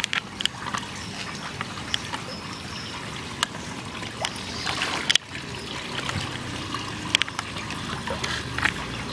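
Water trickling in a catfish pond that is being drained, with scattered sharp little splashes from young catfish crowding at the surface.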